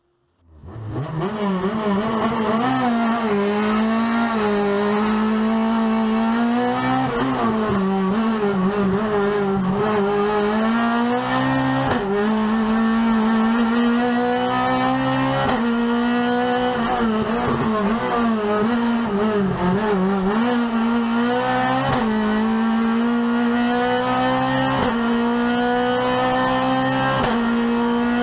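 Renault Clio Cup race car's four-cylinder engine heard from inside the cabin, driven hard at high revs. Its pitch climbs steadily under acceleration and drops sharply at each gear change, several times over, with occasional dips for corners.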